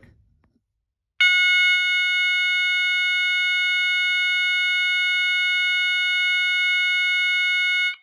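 An old System Sensor MASS horn strobe's MA sounder sounding one continuous, steady horn tone. It starts about a second in and cuts off suddenly near the end.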